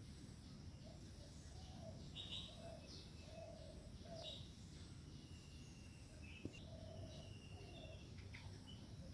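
Faint outdoor birdsong: several birds giving short high chirps and whistles, with a short lower note repeated every second or so. A single sharp click comes about six and a half seconds in.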